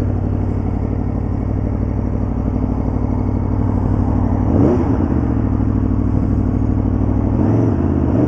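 Aprilia Tuono V4 APRC's 65-degree V4 engine, through its stock exhaust, running at low revs as the bike rides slowly along the road. The revs rise and fall briefly about halfway through and again near the end.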